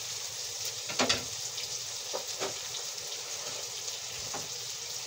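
Food sizzling steadily in hot oil in a frying pan, with a few sharp clicks, the loudest about a second in.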